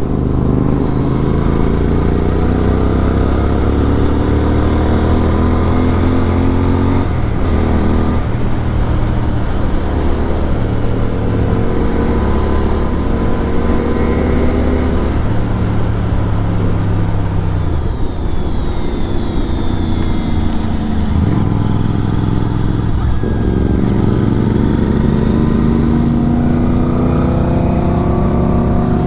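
Kawasaki Z900 inline-four with an SC Project aftermarket exhaust, under way: the engine note climbs in pitch as it accelerates and drops at a gear change about seven seconds in, holds, eases off about two-thirds through, then pulls up again near the end.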